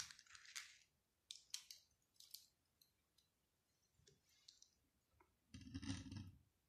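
A few faint, sharp clicks of handling, then near the end a longer muffled rustle and bump as the recording phone is handled and repositioned.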